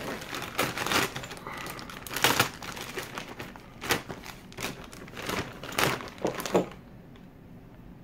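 Clear plastic packaging bag crinkling and rustling as it is cut and pulled open with a pocket knife, on and off, stopping about seven seconds in.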